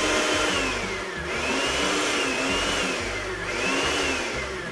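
Countertop blender running, blending a thick seasoning paste of garlic, ginger, bell pepper, mint, lime and coconut oil; its motor pitch swells and sags about every two seconds, and it tails off at the very end.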